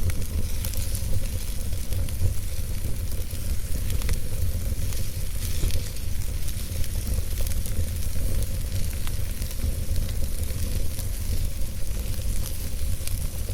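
Campfire burning: a steady hiss with scattered sharp crackles and pops from the burning wood, over a steady low rumble.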